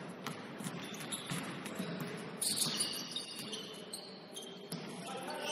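Basketball sneakers squeaking on a hardwood gym floor during play: a few short high squeaks, the busiest cluster about two and a half seconds in, over the hum of the gym and scattered light knocks.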